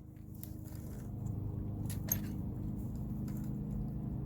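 A screwdriver prying at a brake caliper, making a few faint metal clicks, over a steady low hum that grows slightly louder.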